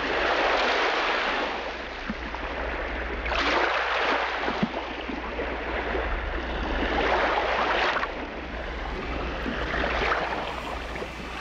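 Wind and surf on a sandy beach: a noisy rush that swells and fades every few seconds, over a steady low wind rumble on the microphone.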